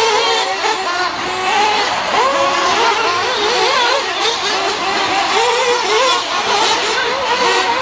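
Several nitro RC cars' small two-stroke glow engines running together around a dirt track, each one's pitch rising and falling as it accelerates and backs off, overlapping throughout.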